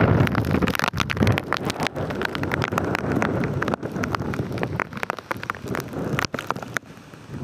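Wind buffeting the microphone in uneven gusts, with many short sharp crackles, easing off briefly near the end.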